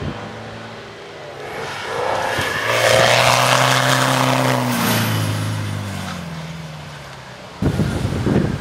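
Engine of a Land Rover-based off-road competition car driving past, growing louder to a peak a few seconds in, then dropping in pitch and fading as it goes away. About a second before the end the sound cuts abruptly to a louder, rougher engine noise.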